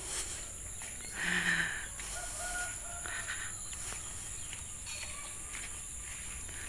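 Quiet rural outdoor ambience: a steady high-pitched insect buzz, with short bird calls about a second in and again around two to three seconds in.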